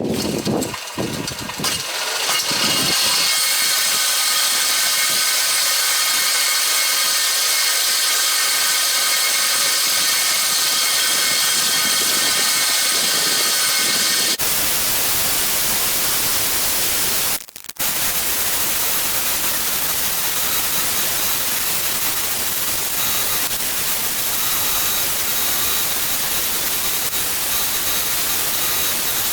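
Power sander running steadily as a cutlass handle is ground down to shape, a loud grinding rush with a faint high whine. About halfway through the sound changes abruptly, then cuts out for a moment and resumes.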